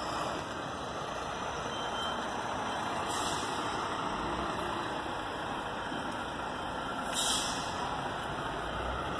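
Heavy truck engines running with a steady noise, and two short hisses of compressed air from air brakes, about three and seven seconds in.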